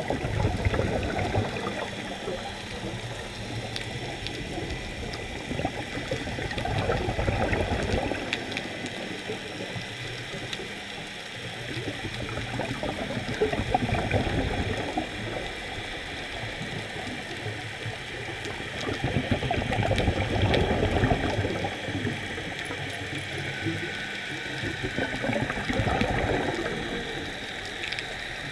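Scuba regulator exhalations heard underwater: a rush of bubbles swelling up about every six seconds, five times, over a steady watery hiss.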